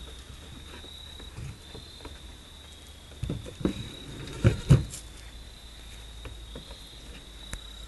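Goat hooves knocking and scraping on a wooden doghouse roof: a cluster of dull thumps in the middle, the loudest as a goat shifts or jumps down. Insects trill steadily and high in the background.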